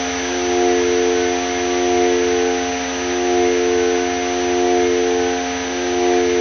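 Ambient drone from a Korg Volca Modular synthesizer, using FM: a cluster of held tones over a bed of hiss, the whole swelling and fading slowly about every second and a half.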